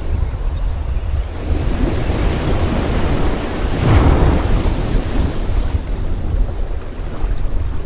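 Wind buffeting the microphone over small waves washing at the shoreline, with a louder rush about four seconds in.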